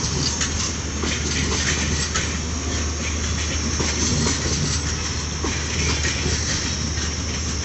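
Indian Railways LHB passenger coaches rolling past at low speed on departure, with a steady rumble and hiss. Irregular short knocks come through as the wheels cross rail joints.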